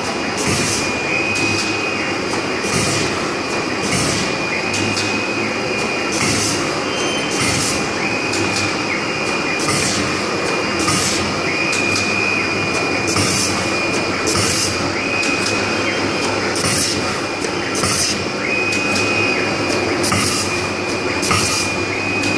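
Roll-to-roll guide hole punching machine running steadily, with short sharp hissing bursts repeating about once a second, often in pairs, as it punches. A high whine comes and goes over the steady mechanical noise.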